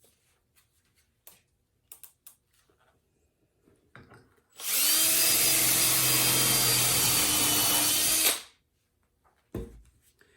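Power drill spinning up and boring a hole in a melamine board guided by a jig, one steady run of nearly four seconds starting about halfway through, with light handling clicks before it.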